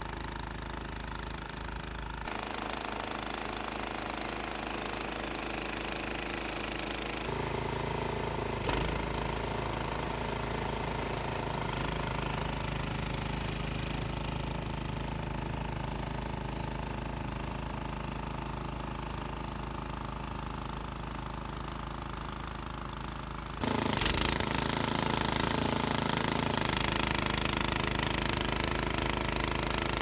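Toro Power Max 828 two-stage snowblower's engine running steadily under load as it cuts through deep, heavy wet snow. The sound shifts abruptly in level and tone a few times and gets louder about 24 seconds in.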